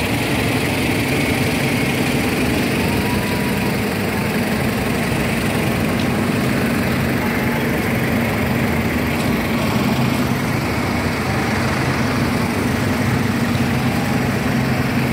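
Steady engine noise of road traffic, with a motor idling close by as an even, low hum.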